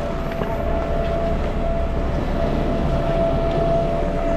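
Chairlift machinery running: a steady mechanical rumble with a constant whine, as the chair is boarded and moves off.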